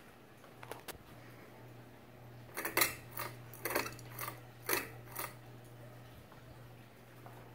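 Ceiling fan's pull-chain switch being pulled to change speed: a run of about six sharp clicks and chain rattles between two and a half and five and a half seconds in, with a couple of fainter clicks about a second in. The fan motor's steady low hum runs underneath.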